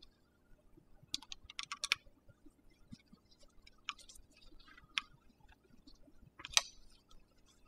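Light clicks and taps of a hydraulic disc brake lever and its handlebar clamp being turned and slid on the bar by gloved hands. A quick run of clicks comes about a second in, then single taps, the loudest near the end.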